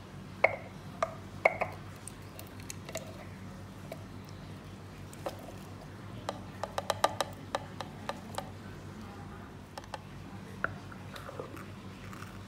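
Scattered clicks and knocks as chopped avocado, tomato and cilantro are tipped from a ceramic dish into a plastic food-chopper bowl. The two sharpest come in the first two seconds, and a quick cluster of clicks comes about six to eight seconds in, over a steady low hum.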